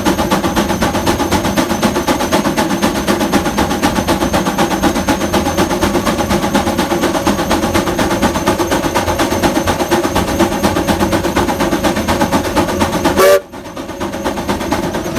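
Case steam traction engine, which the uploader believes is a Case 75, chuffing its exhaust in rapid, even beats while working hard against the dynamometer on a power run, with a steady high tone above it. The sound cuts off abruptly near the end, leaving a quieter sound.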